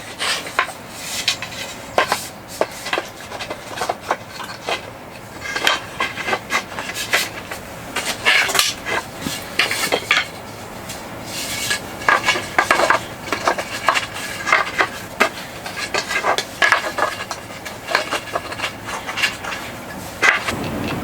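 Irregular clinks, knocks and scrapes of hard objects being handled, coming every fraction of a second with short pauses.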